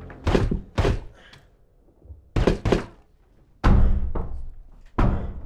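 About six heavy thuds at uneven intervals, some in quick pairs, each with deep low end and a short decaying tail: percussive impact hits of cinematic sound design.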